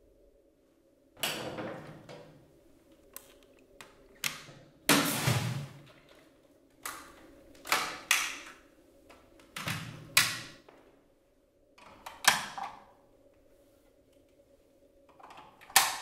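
Hard plastic clicks, clunks and short rattles from a Dyson V8 cordless vacuum being handled with its motor off: the bin-release mechanism works, the bin base snaps open and shut, and the machine clicks into its wall dock. There are about eight separate knocks, with the heaviest clunk and rattle about five seconds in.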